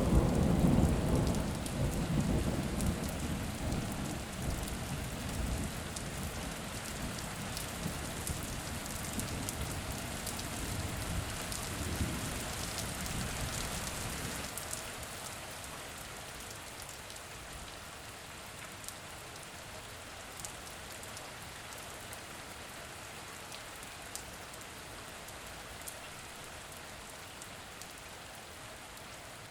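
Steady rain falling, with a clap of thunder right at the start that rolls on, swells again about twelve seconds in, and dies away about halfway through, leaving the rain alone.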